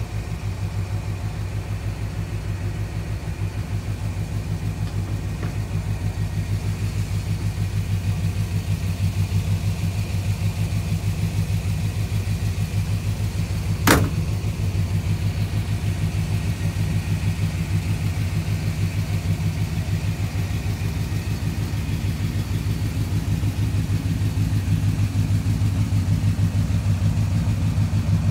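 Custom 1951 Ford pickup's engine idling steadily through its exhaust, a low even rumble that grows a little louder near the end. A single sharp click about halfway through.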